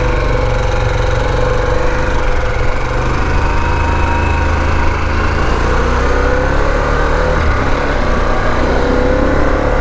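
Motorcycle engine running steadily under way, with a held note that drifts slightly in pitch over a low rumble and rushing air.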